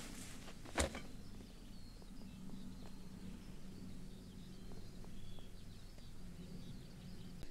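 Quiet outdoor ambience: a low steady hum with faint, scattered bird chirps, and a single sharp knock about a second in.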